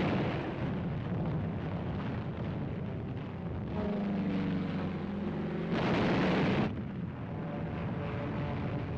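Bombs exploding in an aerial bombardment: a continuing low rumble of blasts, with a louder blast about six seconds in.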